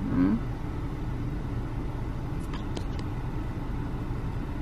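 Steady low rumble of a car heard from inside the cabin, with a brief vocal sound right at the start and a couple of faint clicks about two and a half seconds in.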